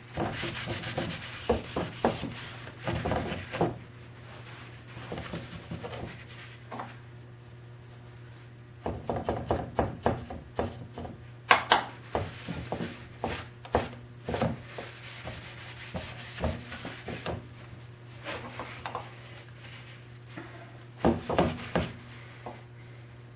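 Rubbing and handling on a wooden tool chest, with irregular small knocks and clicks from the wood between stretches of rubbing.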